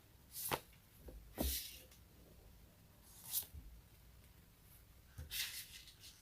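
Close-miked sticky surfaces being peeled apart: four short crackly strokes a second or two apart.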